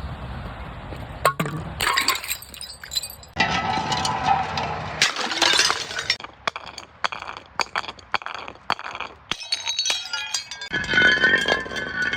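Glass bottles being broken and crushed: a run of sharp cracks and crunches with shards clinking, and clear ringing notes of glass near the end.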